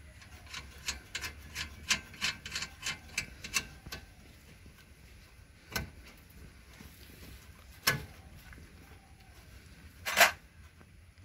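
Light metal clicks and rubbing from hand work on the exhaust flange nuts of a two-stroke three-wheeler engine as the silencer is refitted: a quick run of about four clicks a second for some three seconds, then three single sharper knocks, the loudest near the end.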